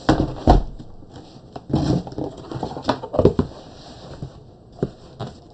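Cardboard shipping box being opened and handled: flaps pulled back with scraping and rustling cardboard noise and several knocks, the loudest thump about half a second in.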